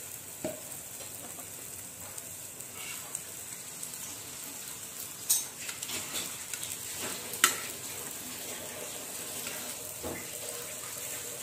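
Oil sizzling steadily under a jaggery-and-flour batter pancake (sweet poora) frying on a flat tawa. A metal spatula scrapes and clicks against the pan a few times, sharpest about five and seven seconds in.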